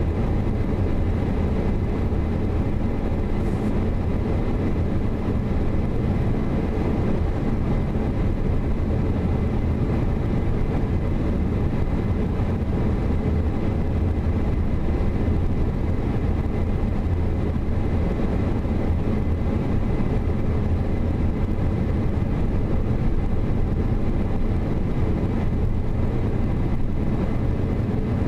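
Steady low rumble of a car driving slowly, its engine and tyre noise heard from inside the cabin.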